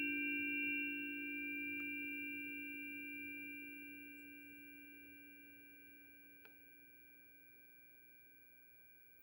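Crystal singing bowl and metal chime tones ringing out and slowly dying away after a strike: a low steady hum under a few high, pure tones, fading evenly toward silence. A faint tick sounds about six and a half seconds in.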